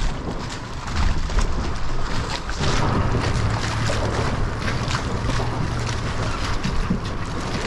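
Wind buffeting the microphone in rapid gusts, with a steady low hum that comes in about three seconds in and fades out near the end.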